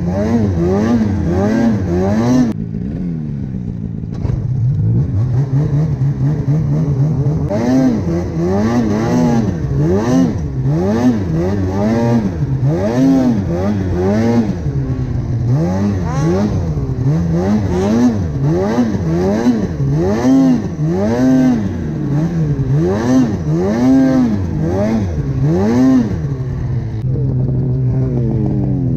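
Snowmobile engine revving up and down in quick swells, about once a second, as the throttle is worked on and off. It runs lower and steadier for a few seconds early on, then settles to a steady lower note near the end.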